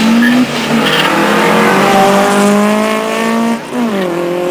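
Two drag-racing cars, a Peugeot 205 and a second hatchback, launching off the start line at full throttle. Their engines rise in pitch through the gears, with an upshift about half a second in and another near the end.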